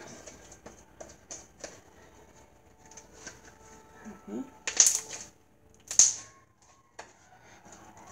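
Homemade slime being kneaded and squeezed by hand, giving scattered sticky clicks and squelches, with two louder wet pops about five and six seconds in.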